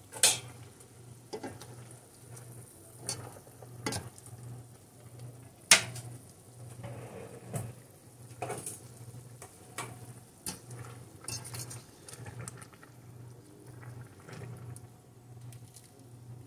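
Wire spider strainer scraping and clinking against a stainless steel pot as blanched spinach is scooped out of hot water, in scattered knocks with one sharper clank about six seconds in. A low pulsing hum runs underneath.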